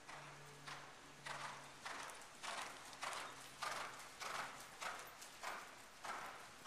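Hoofbeats of a Dutch Warmblood gelding moving on sand arena footing. Each stride comes as a soft scuffing beat, about one every 0.6 seconds, steady and growing louder over the first few seconds as the horse comes nearer.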